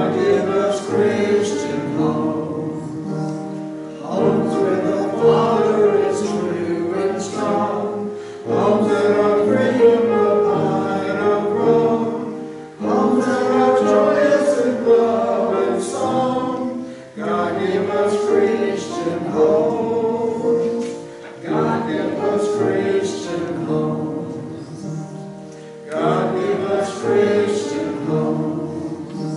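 Church congregation singing a hymn together in phrases of a few seconds each, with brief breaks between lines.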